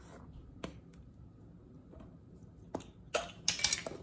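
Metal measuring cup scooping flour from a plastic tub and tipping it into a stainless steel mesh sieve: a faint click about half a second in, then a quick run of light clicks and taps near the end as the cup knocks against the tub and sieve.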